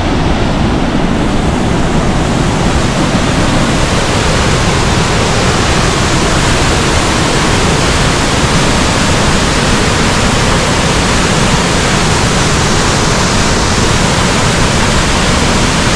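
A waterfall's steady, loud rush of falling water.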